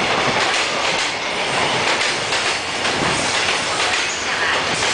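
Container flatcars of a freight train rolling past close by: a loud, steady rumble of wheels on rail, with the wheels clicking over the rail joints.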